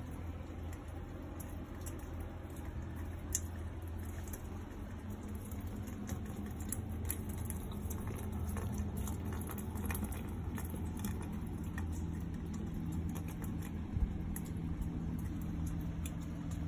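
Rain pattering and dripping on a balcony: many small, irregular taps of falling drops, over a steady low hum, with a couple of sharper ticks.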